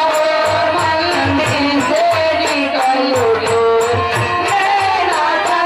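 Live Indian folk stage music: a sliding melody line over a steady beat of hand-drum thumps and rapid, regular metallic jingling percussion.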